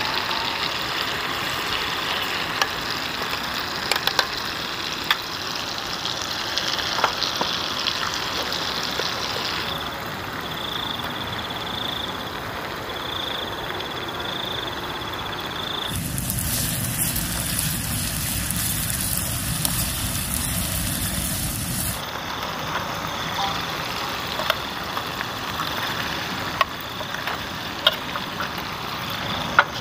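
Chili sauce and chicken frying and sizzling in a pan on a portable gas stove, with the burner's steady hiss and spatula scrapes and clicks on the metal pan. A little past halfway the sizzle turns much louder and hissier for about six seconds, then settles back.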